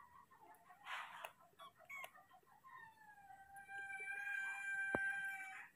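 A rooster crowing once in the background: a single long, drawn-out crow of about three seconds that begins a little over halfway through, dipping in pitch at its start and then held steady. Soft clicks and a short rustle come before it.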